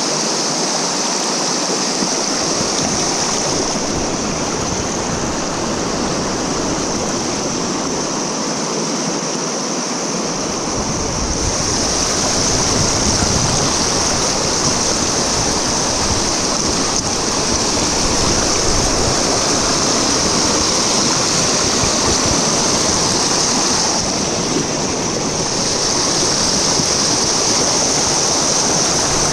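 Fast river current rushing and splashing around a small fishing boat and the legs of the person guiding it through a riffle by hand: a steady, loud rush of water. About eleven seconds in it grows louder and a low rumble joins it.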